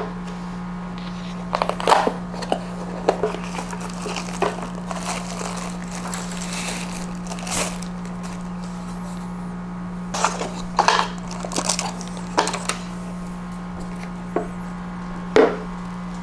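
Steady low electrical hum with scattered handling noises over it: crinkling, clicks and knocks, in clusters about two seconds in, between ten and thirteen seconds, and once more near the end.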